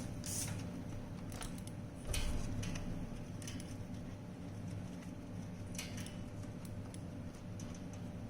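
Light clicks and taps of small parts being handled during robot vacuum disassembly, with a louder rustling knock about two seconds in, over a steady low hum.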